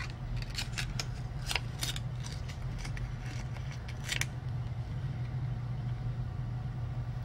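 Sticker paper being handled and pressed down onto a planner page: a scatter of short crinkles and taps through the first four seconds, then quieter, over a steady low hum.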